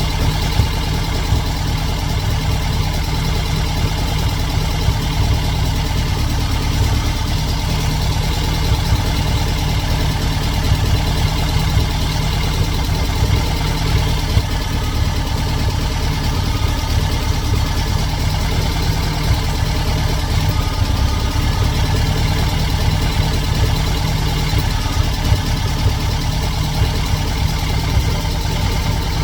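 Air-cooled 2110cc Volkswagen flat-four engine of a 1979 Super Beetle idling steadily, with a low, even beat.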